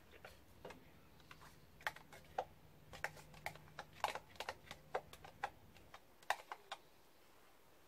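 Spoon clinking and scraping against an enamel pot in light, irregular clicks and taps as sour cream is spooned into melted cheese.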